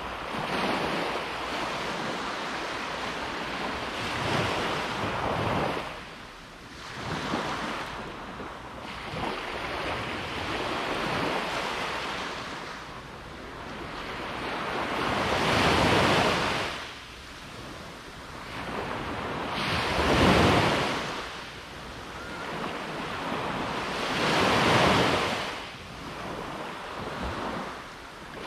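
Ocean surf breaking on a beach: a rushing wash that swells and falls back every few seconds, with three bigger breakers in the second half.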